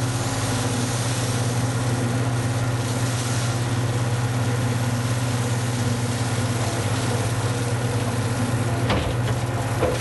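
Skid steer loader's engine running at a steady speed, a constant low hum.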